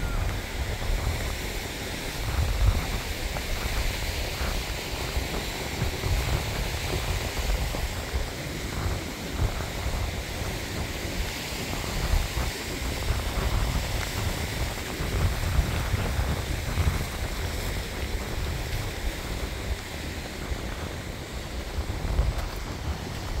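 Wind buffeting the microphone in uneven gusts, over a steady rushing hiss of a mountain stream running down rocky cascades.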